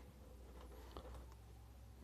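Near silence: a steady low hum with one faint click about a second in.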